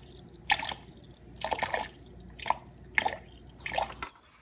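Water dripping: about six separate drops with a plopping ring, irregularly spaced, cutting off suddenly about four seconds in.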